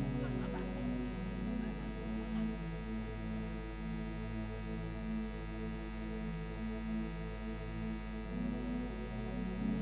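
Steady electrical mains hum, with low held tones that change pitch every second or so.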